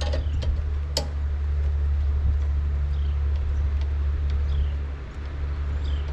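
Metal clinks as carburetor bolts and parts are handled and set on a push mower, twice near the start, over a steady low rumble.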